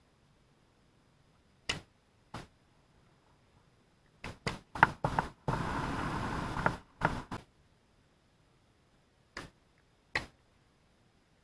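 Tennis ball hit by rackets and bouncing on a hard court: single sharp pops spaced a second or more apart, a quick run of several hits and bounces in the middle, and a burst of rushing noise lasting just over a second.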